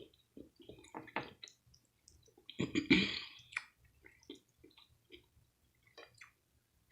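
Close-up eating sounds: wet chewing and lip smacks in short irregular clicks, with a louder wet slurp-like sound about three seconds in.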